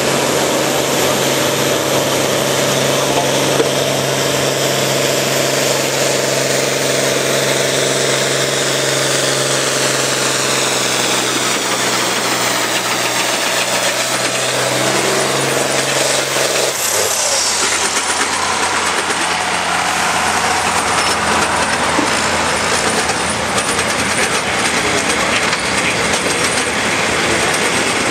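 Farm tractor diesel engines running steadily close by. About 17 seconds in, the steady engine note cuts off and gives way to a different engine sound.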